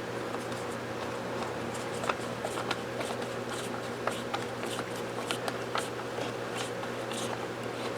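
Small irregular clicks and taps of rifle parts and tools being handled during reassembly of a lever-action rifle's stock and hammer-spring assembly, over a steady background hum.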